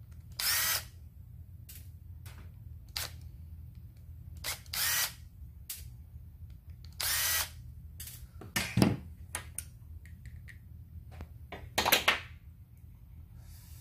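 Cordless drill-driver spinning in three short whining bursts as it backs out the screws holding a chainsaw carburetor together, taking it apart to check a hardened diaphragm. Light clicks come between the bursts, and sharp clacks of small metal parts come about nine and twelve seconds in.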